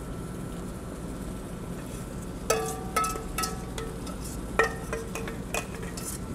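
Metal kitchenware clinking over a steady kitchen hum: a handful of sharp metal clinks, each ringing briefly, starting about two and a half seconds in.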